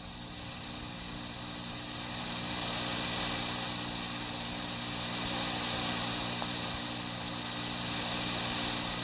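Steady electrical hum and hiss of an old police dispatch radio recording between transmissions. Several constant low tones sit under a band of hiss, and the level slowly swells and eases.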